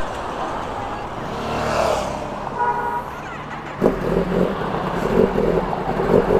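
Road traffic with vehicles passing. A short horn toot comes about two and a half seconds in. About four seconds in, a louder engine starts up suddenly and runs with uneven pulses.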